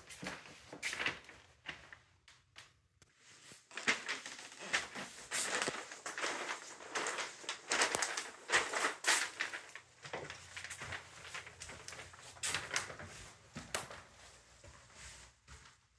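Footsteps crinkling and rustling over protective paper and plastic sheeting laid on the floor: irregular crackles, thickest through the middle and thinning out near the end.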